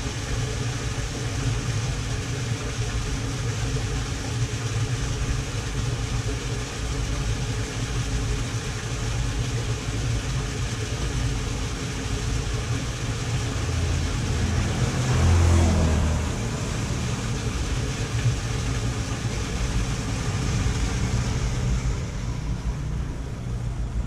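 A motor vehicle engine idling steadily close by. About fifteen seconds in, the sound swells and drops in pitch, as when a vehicle passes.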